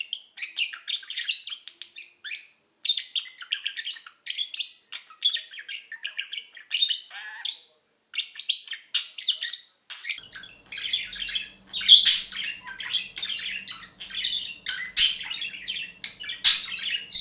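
Budgerigar warbling song: a rapid, continuous run of chirps, chatter and squeaky notes, the contented singing of a budgie in good spirits.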